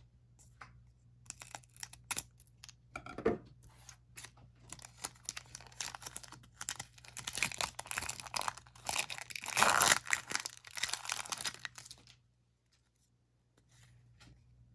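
Foil Pokémon booster pack wrapper being torn open and crinkled by hand, a run of crackling rustles that is loudest about two-thirds of the way through and stops a couple of seconds before the end.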